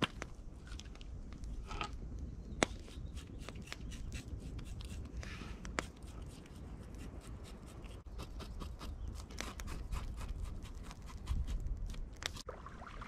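Knife cutting and scraping a fish on bare rock: a run of small clicks and scrapes with a couple of sharp knocks, over a steady low rumble.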